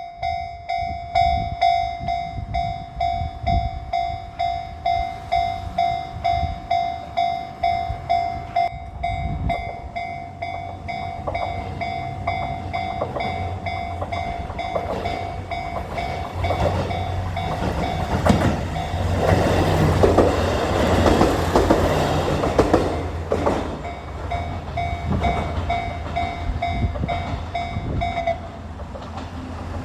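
Japanese level-crossing alarm pulsing steadily as a train runs over the crossing, its wheels clattering over the rail joints. The train is loudest a little past the middle and fades, and the alarm stops just before the end.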